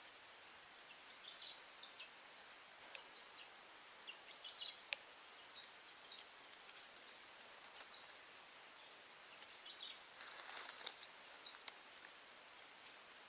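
Faint outdoor ambience: a soft steady hiss with a few short, high bird chirps scattered through it, a couple of small clicks, and a brief rustle about ten seconds in.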